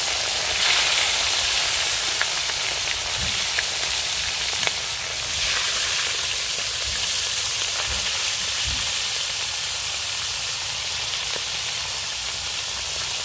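Salted fish frying in hot oil in a wok: a steady sizzle with a few light pops.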